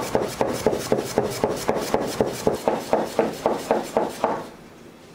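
Soba knife chopping folded buckwheat dough into noodles against a wooden guide board, each stroke knocking the blade onto the wooden cutting board in a steady rhythm of about four cuts a second. The cutting stops about four seconds in.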